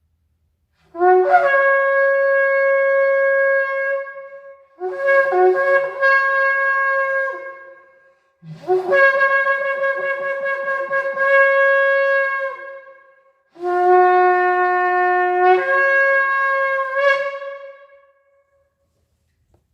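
Ram's-horn shofar blown in four long blasts, each starting on a lower note and stepping up to a higher, brassy held note before tailing off; the last holds the low note for about two seconds before jumping up.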